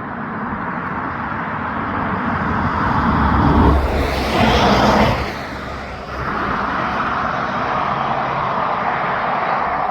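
Road traffic going by: a vehicle's engine and tyre noise builds, passes closest about four to five seconds in and fades, then more traffic noise holds steady.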